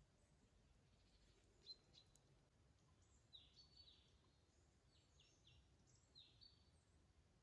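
Near silence in a forest, with faint bird chirps: a run of short, high, falling notes from about three seconds in. Two small clicks come a little before that.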